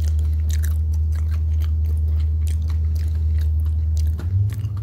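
Close-up chewing of a mouthful of crispy-coated fried chicken sandwich: wet crunching and many small sharp clicks, over a steady low hum.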